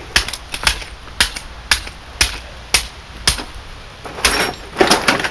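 Hammer striking the broken shell of a smashed CRT television and speaker box: a string of sharp knocks about two a second, coming faster and bunched together about four seconds in.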